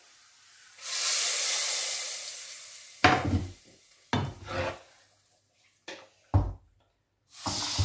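Hot oil with fried garlic and paprika poured into a pot of spinach and chickpeas in broth: a loud sizzling hiss starts about a second in and fades over the next two seconds. Then come a few knocks and scrapes of a wooden spatula and the pans, and the sizzling starts again near the end.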